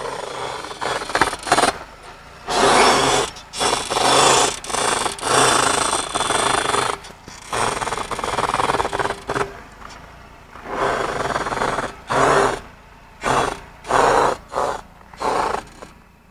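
Mazda3 front wheel suspension squeaking and creaking in a dozen or so rasping bursts, each up to about a second long, as the wheel is turned. It is a squeak that comes on in freezing cold during turns.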